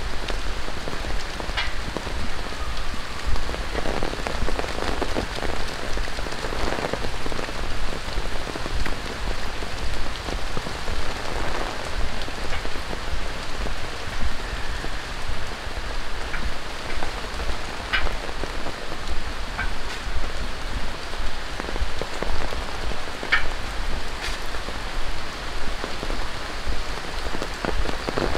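Tropical rain falling steadily on pavement and surfaces, an even hiss with an uneven patter and a few sharper drips landing close by.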